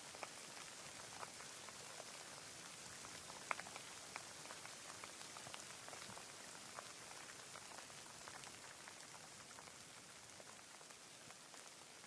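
Light rain: a soft steady hiss with scattered single drops ticking, one sharper drop about three and a half seconds in.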